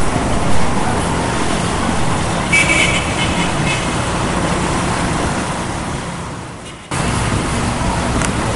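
Street traffic: motorcycles and cars passing below with a steady engine and tyre rumble. A short high-pitched sound comes about two and a half seconds in, and the noise sags, then cuts back in abruptly about seven seconds in.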